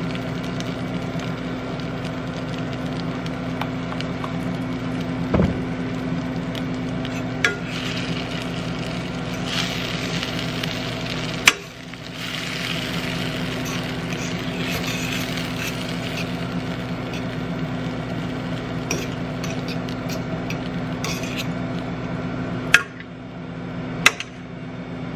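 Cheese, butter and heavy cream sizzling steadily in a stainless steel skillet, with a metal fork stirring and a few sharp clicks of the fork against the pan.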